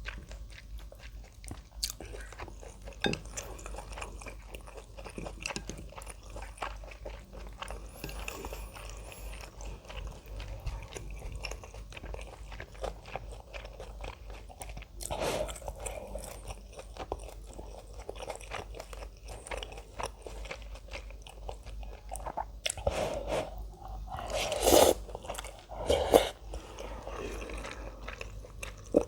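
Close-miked eating: steady chewing and crunching as ramen and kimchi are eaten, with a few louder bites about fifteen seconds in and again near the end.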